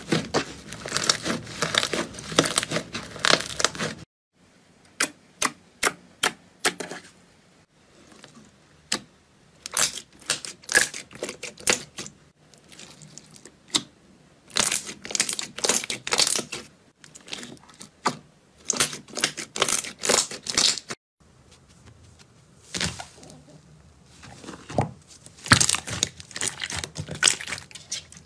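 Hands squeezing and kneading slime: bursts of sticky clicks, pops and squelches several seconds long, with short quiet gaps between.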